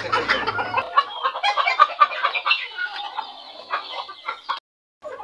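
A flock of Cochin and Frizzle bantam chickens clucking and calling over one another in short, irregular calls. The sound cuts out completely for a moment near the end.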